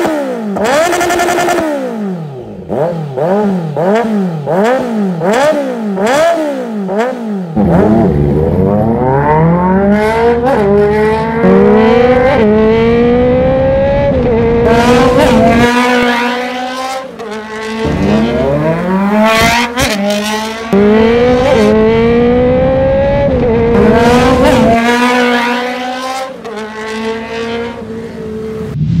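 2022 Kawasaki Z900 SE's inline-four engine through an aftermarket full exhaust system. It is blipped in quick rev bursts for the first seven seconds or so, then pulls hard under acceleration, the revs climbing and dropping back at each upshift, over several runs.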